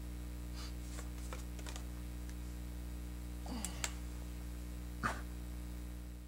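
Low, steady electrical hum under quiet room tone, with a few faint ticks and two brief soft noises about three and a half and five seconds in; it fades out near the end.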